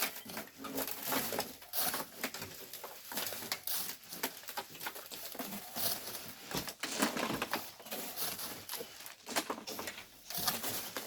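Irregular crunching and scraping strokes, many in quick succession.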